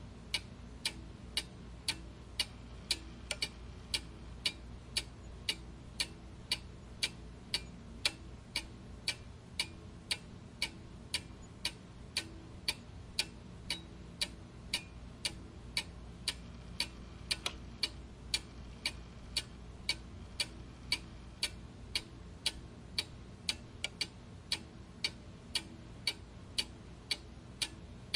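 Clock ticking steadily, about two ticks a second, over a faint low background hum.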